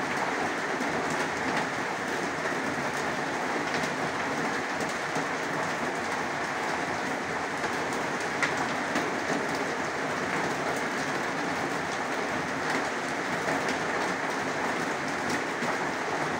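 Heavy rain falling steadily, a dense, unbroken patter of drops.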